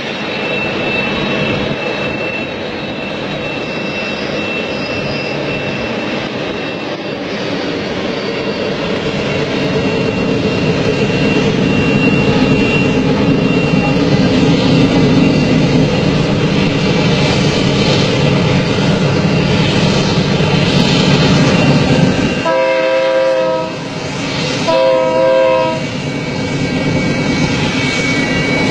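Diesel freight locomotives hauling a long container train, their rumble growing steadily louder as they approach. Near the end the locomotive air horn sounds two blasts, the first longer than the second.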